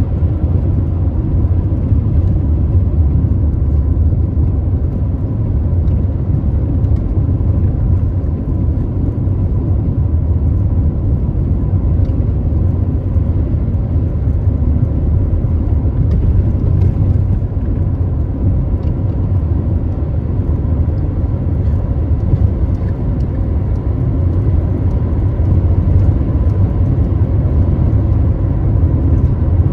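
A car driving at steady speed on a country road: the even, low rumble of tyres and engine heard from inside the car.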